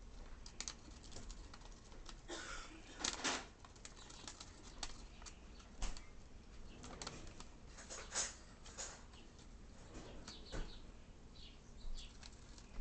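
Fischer's lovebird working at paper in its cage: irregular scratchy rustling, crinkling and clicking as the bird handles and chews the paper, with a few louder bursts.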